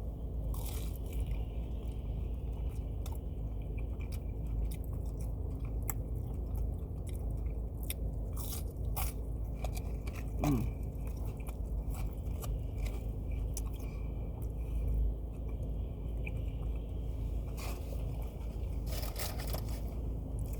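Close-up chewing and crunching of a fried pickle spear, with many short crisp clicks scattered through, over a steady low hum from the car.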